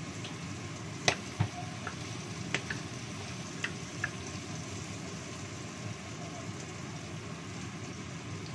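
Wooden spatula knocking and scraping against a wok as shallots and garlic are stir-fried, a handful of sharp knocks in the first four seconds. Underneath runs the steady hum of a kitchen range-hood extractor fan.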